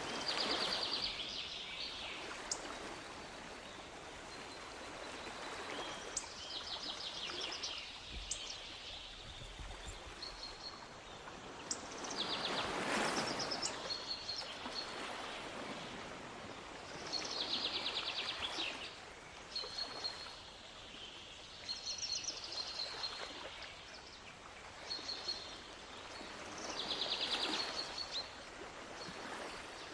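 Waves washing in and drawing back, swelling every few seconds, with small birds repeatedly singing short rapid trills and high chirps over them.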